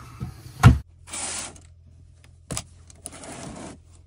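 Handling noises inside a camper van. A loud knock comes a little under a second in, then two short rustling noises with a sharp click between them, over a faint steady low hum.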